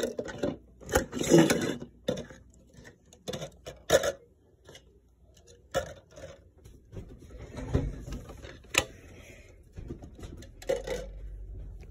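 Red plastic party cups being handled and stacked close to the microphone: scattered light plastic clicks and knocks with some rubbing.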